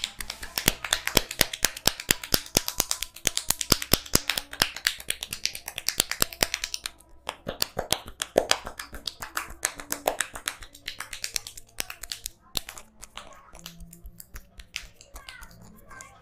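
Rapid percussive strikes of a barber's hands on a head during a head massage: a quick run of sharp slaps and claps, several a second. There is a brief pause about seven seconds in, and the strikes thin out after about twelve seconds.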